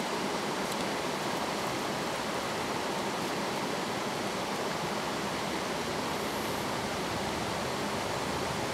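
Stream water rushing over rocks: a steady, even rush.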